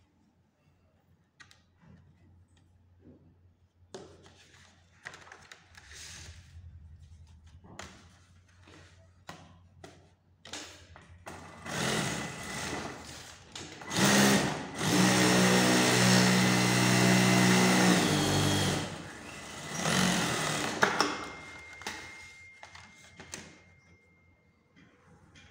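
Industrial single-needle lockstitch sewing machine stitching a shirt collar clamped in a template. Light clicks and taps of the template being handled come first. About halfway in the machine starts in short spurts, then runs steadily for about four seconds, and makes one more short run before it stops.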